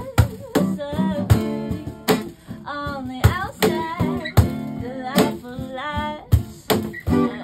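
Live acoustic music: a woman singing a wavering melody over a strummed acoustic guitar, with sharp cajon strokes about twice a second keeping the beat.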